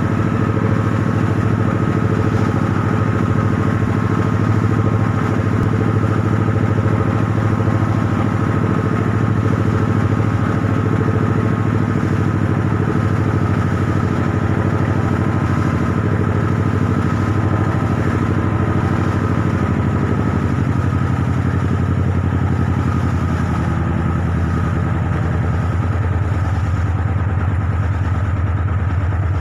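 Harbour launch's engine running steadily with a loud, even hum as the boat moves across open water; its note shifts slightly about twenty seconds in.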